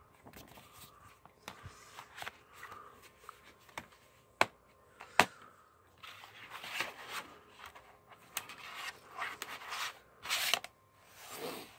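A plastic DVD case and its paper inserts being handled: rustling and scraping, with two sharp clicks a little under a second apart, about four and five seconds in, as the case is snapped shut.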